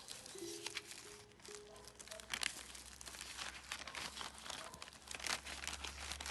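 Packaging being handled, a run of irregular crinkling and crackling rustles, over soft background music.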